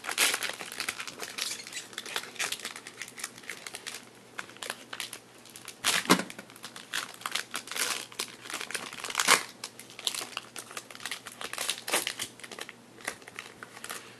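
Silver foil trading-card pack being peeled open and crinkled by hand: continuous crackly crinkling, with sharper, louder crackles about six and nine seconds in.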